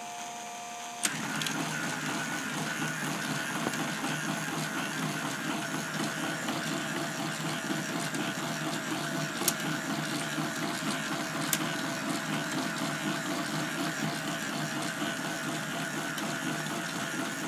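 K'nex electric motor driving a plastic gear train and transmission: a steady whirr with rattling gear chatter and a faint wavering whine, starting with a click about a second in, with a couple of light ticks later on.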